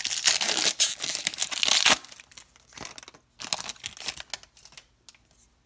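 Foil wrapper of a 2019 Topps Series 1 baseball card pack being torn open and crinkled, loud for about two seconds, then a few softer scattered crinkles.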